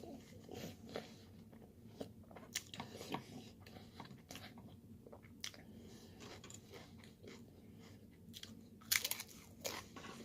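A person chewing food close to the microphone, with short crisp crunching clicks scattered throughout and a louder cluster of crunches near the end.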